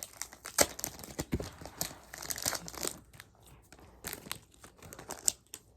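Foil wrapper of a Pokémon card booster pack crinkling and tearing as it is opened and handled: a dense run of crackles for about three seconds, then sparser rustles with one sharper crackle near the end.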